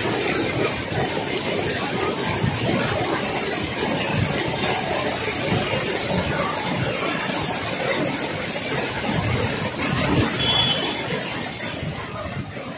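Heavy rain and floodwater rushing across a road, with vehicles driving through the water, in a dense steady wash of noise that fades out near the end.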